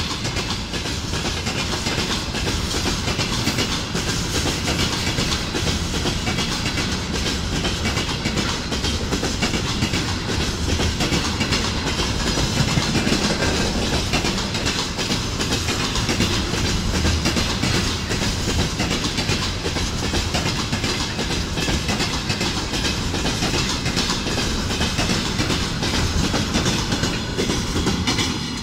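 Freight train of loaded container flatcars rolling past: a steady rumble, with wheels clicking over the rail joints.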